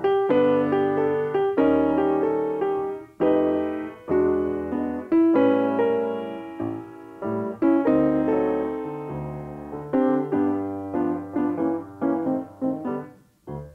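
Solo piano music, chords and melody notes ringing and fading, quickening into shorter notes near the end before a brief pause.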